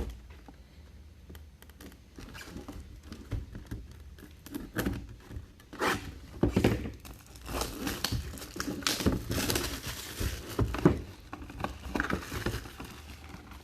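Box packaging being torn open and handled: crinkling, tearing and light knocks that start a couple of seconds in and grow busier toward the middle.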